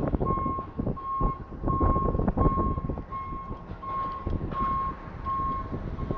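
Vehicle reversing beeper: a single-pitched beep repeating about one and a half times a second, over a low rumble.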